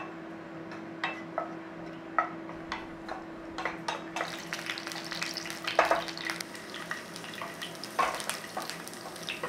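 Garlic cloves sizzling in olive oil in a nonstick frying pan, stirred with a wooden spoon that knocks against the pan now and then. The sizzle grows stronger about four seconds in.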